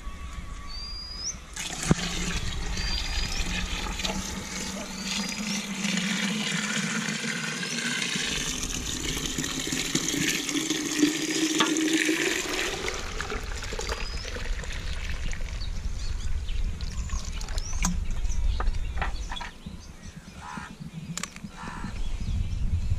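Fresh cow's milk poured from a metal bucket through a cloth strainer into a plastic milk can: a splashing pour that starts about two seconds in and runs for about eleven seconds, its pitch rising toward the end, then stops. Scattered light knocks and scrapes follow.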